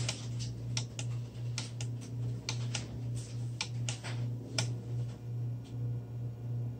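Irregular light clicks and taps of hands rummaging through tackle for a soft plastic bait, over a steady low hum.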